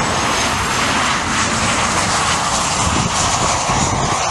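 Twin jet engines of a Boeing 737 airliner on final approach, flaring to land: a loud, steady rushing roar with hiss.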